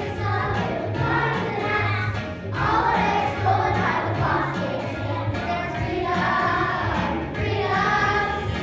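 A group of children singing together over a musical backing with a steady bass beat.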